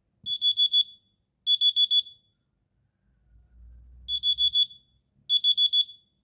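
Wake-up alarm beeping: four quick groups of four or five high beeps, in two pairs with a gap of about two seconds between them. A faint low sound comes in the gap.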